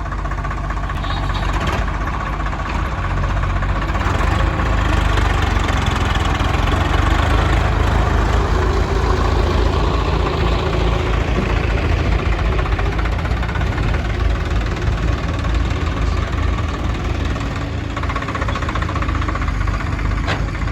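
Heavy diesel engine running steadily, growing louder over the first few seconds and then holding.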